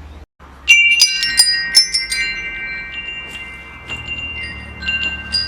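Metal wind chimes struck in a quick cluster about a second in, their tones ringing on long after, with a few lighter strikes near the end.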